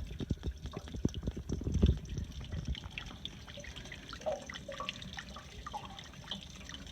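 Water dripping and trickling out of an RV water heater's open anode-rod port, with a run of sharp knocks in the first two seconds.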